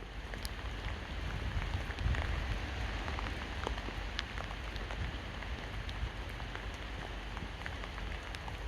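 Steady rain falling on hard surfaces, with many single drops ticking sharply close by, over a low rumble.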